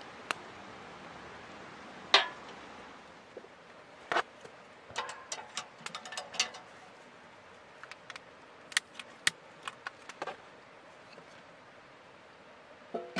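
Small sheet-metal wood stove being handled, its door and latch giving a string of sharp metallic clicks and clinks. A steady hiss comes first, and a loud knock about two seconds in.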